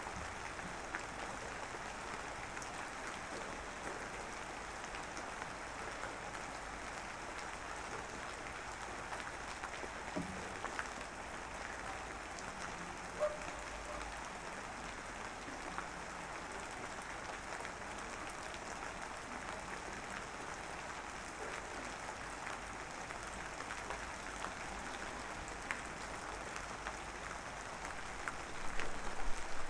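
Light drizzling rain falling steadily: an even patter with scattered individual drop ticks, and one sharper tap about thirteen seconds in.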